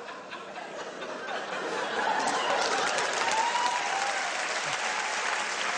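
Audience laughter swelling into applause, the clapping building over the first two seconds and then holding steady.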